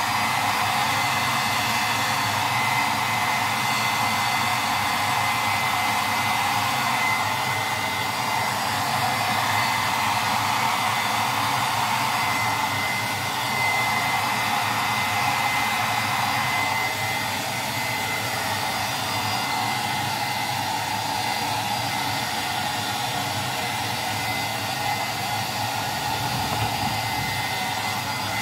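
Hair dryer running steadily, blowing on a dog's fur, with a thin high whine over the rush of air. It gets a little quieter a little past halfway.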